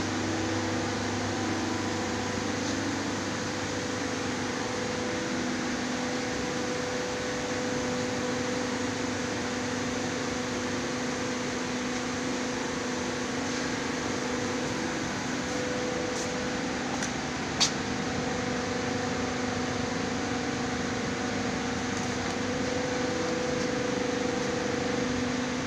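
Hydraulic press brake standing powered up, its pump and motor running with a steady hum, and one sharp click about two-thirds of the way through.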